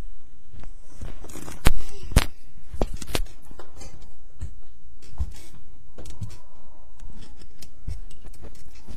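Handling noise of a webcam being picked up and moved about: a run of irregular clicks and knocks with rustling between, the loudest two knocks coming close together about two seconds in.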